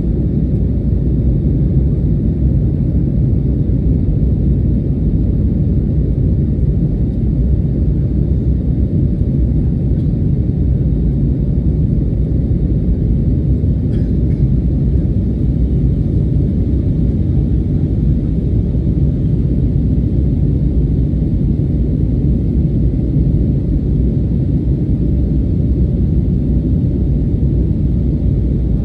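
Steady low rumble of engine and airflow noise inside the cabin of an Airbus A320neo in flight, heard from a window seat.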